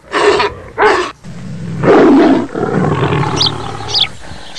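Rottweiler dog barking twice in the first second, followed by a louder, longer low rumbling sound about two seconds in.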